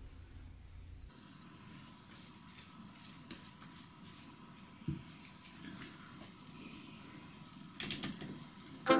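Faint sizzling of suji halwa in a hot stainless-steel frying pan, with a spatula scraping the pan. There is a single knock about five seconds in and a short clatter of the spatula against the pan near the end.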